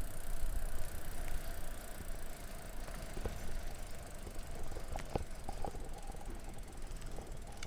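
Greenspeed Magnum recumbent trike rolling along a paved road. There is a steady low rumble of wind and road on the microphone and a steady whine from the moving trike, with a few light clicks.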